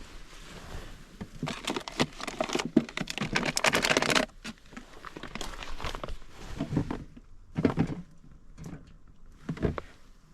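Crinkling and rustling of something being handled at close range, densest for a couple of seconds from about one and a half seconds in, then broken into scattered rustles and soft knocks.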